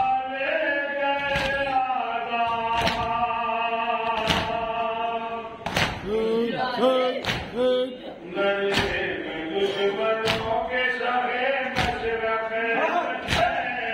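A male voice chants a noha (Shia lament) in long, held melodic lines. Under it come slow, evenly spaced thumps about every one and a half seconds: the mourners beating their chests in unison (matam).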